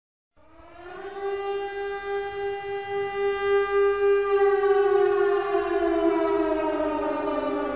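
A single long siren-like wail: it rises quickly in pitch about half a second in, holds, then slides slowly downward for about seven seconds.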